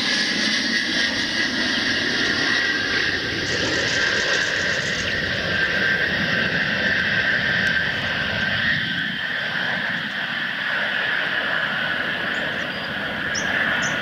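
Ilyushin Il-76 four-engine jet transport passing low on landing approach, its turbofans giving a steady high whine over continuous jet noise that eases slightly as it moves away.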